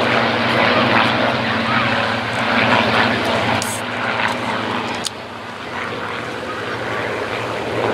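A formation of Second World War fighters, a Hispano Buchon, a Hawker Hurricane and two Supermarine Spitfires, flying past with the steady drone of their V12 piston engines and propellers. The sound drops slightly about five seconds in.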